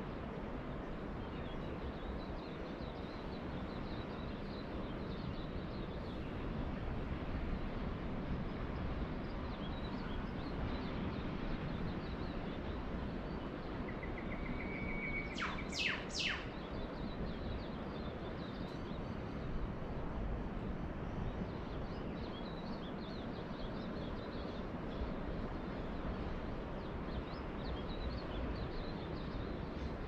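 Steady wash of ocean surf with faint bird chirps scattered through it. About halfway through, a bird gives a short buzzy note followed by three quick, sharp sweeping calls, the loudest sound here.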